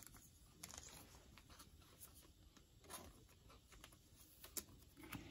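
Near silence, with a few faint clicks and rustles of trading cards being handled by hand.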